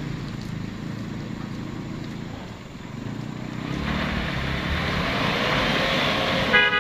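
Engines of a Ford Ranger pickup and the pickup it is towing, labouring up a muddy climb. The engine noise grows louder and slightly higher in pitch from about halfway. A short beep sounds near the end.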